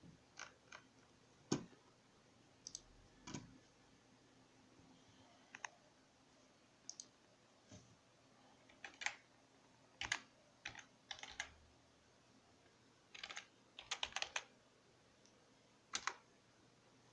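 Scattered sharp clicks over a quiet background, about a dozen, irregularly spaced, with quick clusters of several clicks late on.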